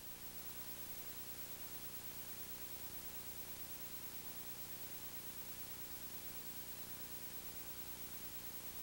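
Steady hiss with a low hum underneath and nothing else: the background noise of an old videotape recording.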